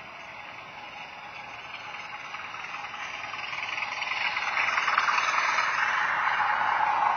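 OO-gauge model diesel locomotive with a DCC sound decoder running on the layout: the diesel engine sound from its small onboard speaker mixed with wheels rattling over the track. It grows louder from about three seconds in, as the train comes closer.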